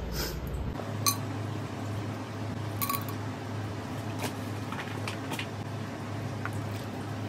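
A metal spoon clinking twice against a glass jar and a granite-coated cooking pot while ghee is scooped out, then a few faint ticks, over a steady low hum.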